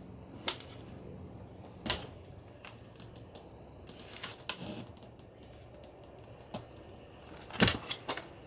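A dog clambering over a blanket-covered couch: a few scattered soft knocks and rustles, with a quick cluster of louder knocks near the end.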